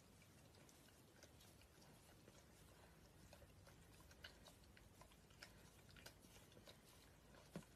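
Near silence, with a few faint wet mouth clicks from a golden retriever gently nibbling a baby's toes; the clearest click comes near the end.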